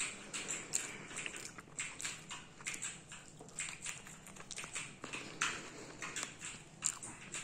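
A toddler eating pizza by hand: irregular wet smacks and clicks from her mouth and fingers as she chews and licks her fingers.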